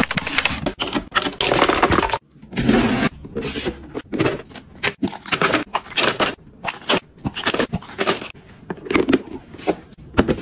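Plastic-wrapped toiletries being handled: crinkling wrappers, with clicks and light knocks of plastic containers set into a plastic storage bin, in quick irregular bursts. There is a brief pause about two seconds in.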